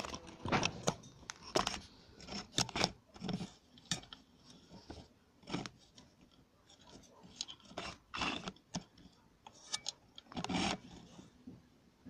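Irregular knocks, scrapes and rubbing of hard materials being handled, coming in short clusters with the loudest near the start and about eight and ten and a half seconds in.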